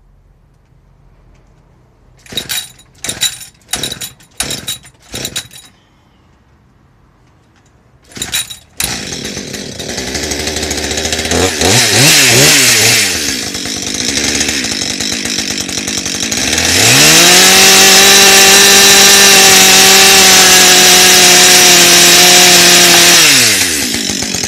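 Gas chainsaw being pull-started: five quick pulls on the starter cord, a pause, one more pull, and the engine catches. It idles, is revved up and down a couple of times, then held at full throttle for about six seconds before dropping back near the end.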